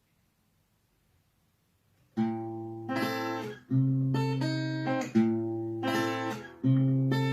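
Silence, then about two seconds in an acoustic guitar starts strumming chords in a steady rhythm: the instrumental intro of a bard song, before the singing comes in.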